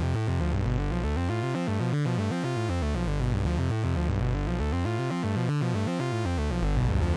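Synthesizer music with quick, stepping notes over a steady bass.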